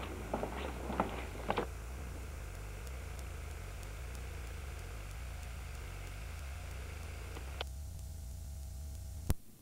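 Camcorder handling noise: a few light clicks and taps over a steady low hum and hiss, then one sharp click near the end, after which the hum cuts off as the recording stops.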